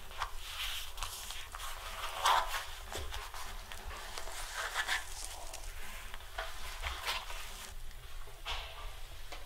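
Soft, irregular rustles and small handling sounds, paper and clothing being moved, over a low steady hum.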